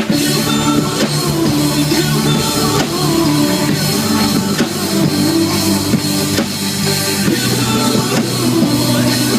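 Band music with no vocals: a drum kit keeps a steady beat under held bass notes, played during a sound check.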